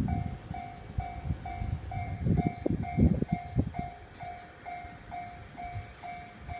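Level crossing warning bell ringing in a steady repeated ding, about two a second, signalling an approaching train. Irregular low rumbles come and go underneath.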